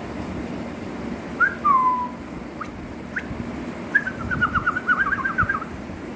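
Oriental magpie-robin singing: a couple of clear whistled notes with a falling slur about a second and a half in, two quick upward notes, then a rapid run of whistled notes from about four seconds in, over a low background rumble.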